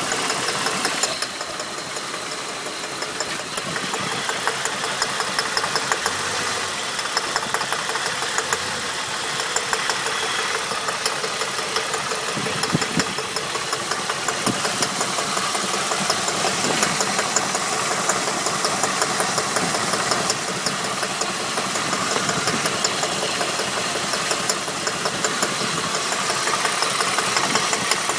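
Holden VT engine running, with a fast, regular knocking rattle.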